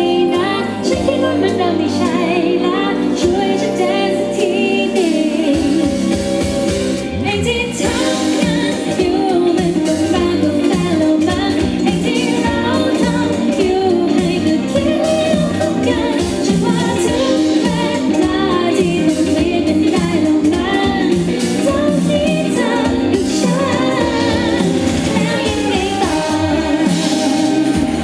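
Female singer singing a Thai pop song live through a microphone and PA, backed by a band with keyboards and electric guitar; the beat fills out about eight seconds in.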